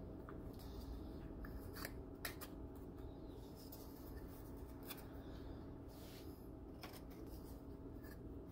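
Quiet kitchen handling sounds: a metal spoon scraping and clinking against a glass dish and bowls, and dry graham crackers being picked up and laid into a glass baking dish, as a few light clicks and scratches over a faint steady hum.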